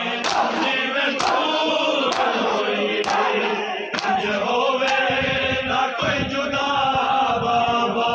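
A crowd of men chanting a noha together, with sharp rhythmic slaps of hands on bare chests (matam) about once a second; the strikes fade after about five seconds while the chanting goes on.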